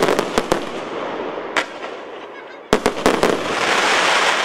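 Multi-calibre fireworks cake firing: sharp bangs of bursting shells, several in the first half-second, one at about a second and a half, and a quick cluster near three seconds. A dense crackling hiss of gold crackling stars then swells and peaks near the end.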